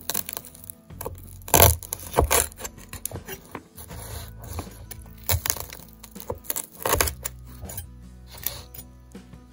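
A knife cutting through the crisp fried crumb coating of chicken tenders on a wooden board: a run of sharp crackling crunches, loudest a little under two seconds in and again about seven seconds in. Background music plays underneath.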